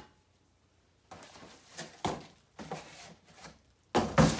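Rustling and scraping of packaging and parts being handled while a flat-pack bar cart is unpacked, in scattered short bursts, with a louder clatter near the end.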